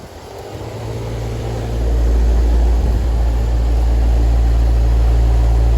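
Rooftop air-conditioning condensing unit starting up after its capacitor was replaced: the compressor and condenser fan build up over about two seconds into a loud, steady low hum.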